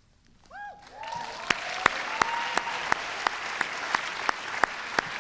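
Audience answering with a brief cheer of a few voices, then applauding steadily from about a second in, with a handful of sharp single claps close to the microphone standing out.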